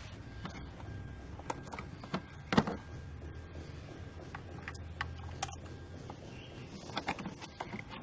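Scattered metallic clicks and taps of hand tools and parts being handled during spark-plug work on a car engine, with a sharper knock about two and a half seconds in and a quick run of clicks near the end, over a low steady hum.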